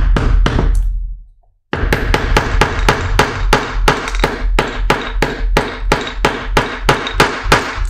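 Mallet striking a hand snap setter, setting a metal snap on a leather sheath strap: a quick run of sharp knocks, a pause about a second in, then a long even series of knocks about three or four a second.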